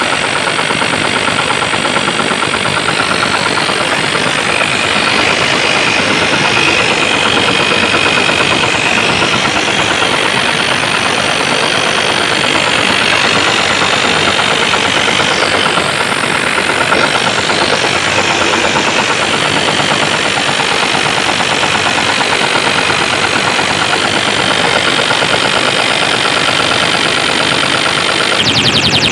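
DJ sound-system music played at extreme volume through large speaker stacks, so overloaded and distorted on the microphone that it comes through as a steady, dense wall of noise with little clear melody.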